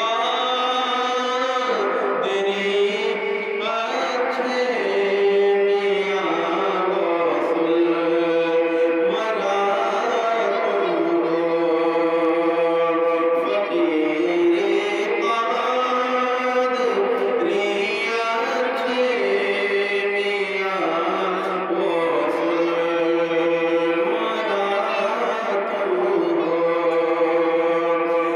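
A man singing a naat, an Urdu devotional song in praise of the Prophet, in long held melodic lines that bend from note to note.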